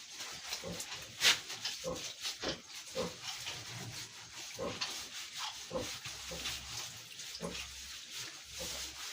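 A pig grunting again and again in short, low grunts while being washed down, with water from a hose hissing and splashing. One sharp loud knock or click comes about a second in.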